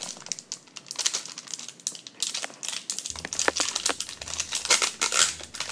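Foil blind-bag packet crinkling in a child's hands, a dense run of irregular crackles as she handles it.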